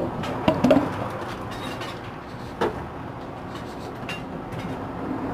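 Homemade slime being squeezed and pressed by hand, giving short clicking pops: a quick cluster about half a second in and one more a little after two and a half seconds. A steady hiss lies underneath.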